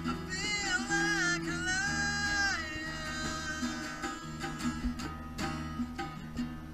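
Live instrumental trio of acoustic guitar and electric bass with hand percussion: a melody with bending, sliding notes over a steady bass line for the first half, then strummed chords with sharper strokes.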